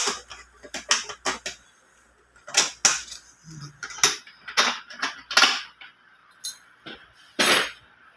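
Irregular sharp clicks and clacks, with a few short scrapes, from hand tools and parts being worked to free the fuel pump housing of a Honda Click 150 fuel pump.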